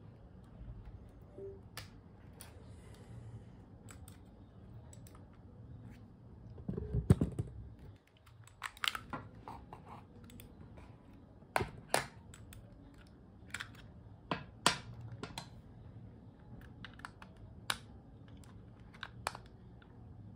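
Scattered small plastic clicks and taps from a wireless mouse being taken apart by hand, its battery cover removed and a screwdriver brought to its screws. One louder, duller thump comes about seven seconds in.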